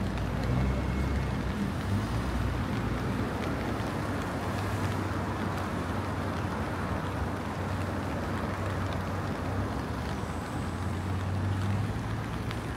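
City street ambience: a steady wash of noise with a low rumble of road traffic that swells a few times.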